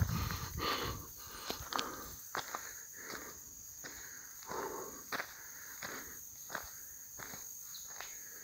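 A hiker's footsteps walking at a steady pace, about one to two steps a second, with a steady high insect buzz behind.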